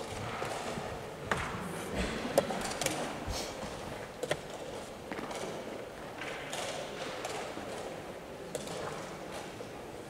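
Wooden chess pieces being set down on a wooden board and a digital chess clock being pressed during a blitz game: a cluster of sharp taps and clicks between about one and four seconds in, and another near the end, over a steady room background.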